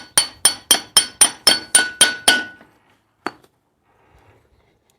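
A hammer tapping on metal: about ten quick ringing strikes at roughly four a second, then one more strike a second later, as a tensioned fastener on a towable backhoe is worked loose.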